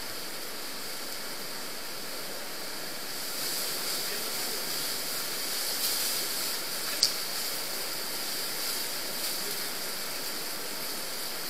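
Steady rush of water flowing through the brick-lined collector tunnel of the underground Neglinka river, with people wading and splashing through it, a little louder from about three seconds in. A single sharp click about seven seconds in.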